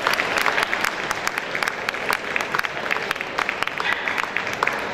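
Crowd of ringside spectators applauding, with many separate hand claps running on at a fairly even level.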